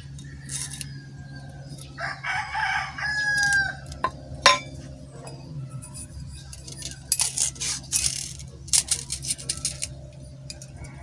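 A rooster crows once, a call of nearly two seconds that ends on a held, slightly falling note. Sharp clicks and clinks of a tape measure and steel pipe being handled follow: one loud click shortly after, then a quick run of clicks later on.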